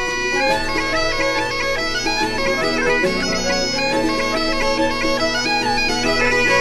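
Instrumental intro music: a melody over steady, sustained drone notes, with the melody coming in about half a second in.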